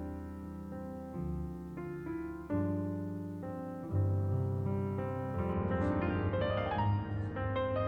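Background piano music: calm chords that change about once a second, with a livelier run of higher notes in the last couple of seconds.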